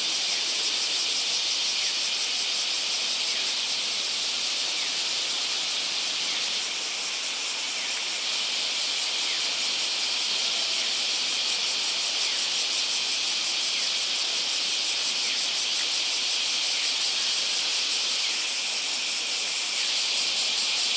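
Cicadas singing in a dense chorus: a steady, high, shrill buzz with a fast pulsing texture, dipping slightly a third of the way in and again near the end.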